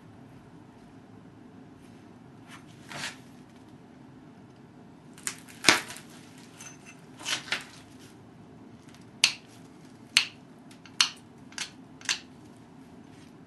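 Pressure flaking a chert Dalton point with a copper-tipped flaker: about ten sharp snaps and clicks as flakes pop off the stone edge, a few seconds apart at first, then about one a second, the loudest about six seconds in.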